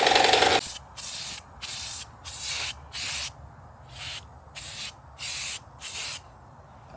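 A steady running motor cuts off about half a second in. It is followed by a series of about eight short hissing spray bursts, each roughly half a second long, with brief pauses between them.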